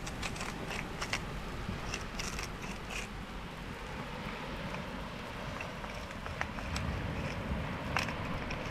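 Campfire crackling with scattered sharp pops, over a steady low rumble of wind and surf.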